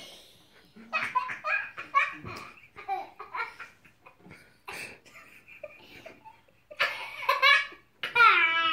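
Toddler laughing in several bursts, the loudest near the end, where the laugh falls in pitch.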